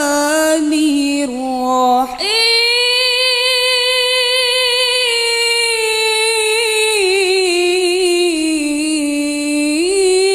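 A woman's solo voice reciting the Qur'an in a melodic, chanted style into a handheld microphone: a few short ornamented phrases, then from about two seconds in one long note held for about eight seconds with wavering ornaments, climbing in pitch near the end.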